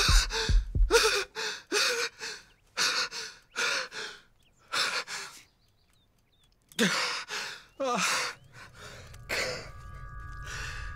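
A man breathing hard in distress: a string of sharp gasps and heavy breaths, some with a voiced moan, broken by a pause of about two seconds in the middle.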